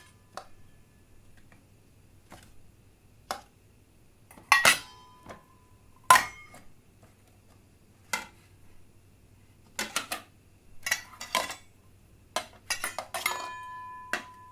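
Glasses and plates clinking and knocking together in irregular, separate strikes, some leaving a brief glassy ring. Near the end, one clink rings on for over a second.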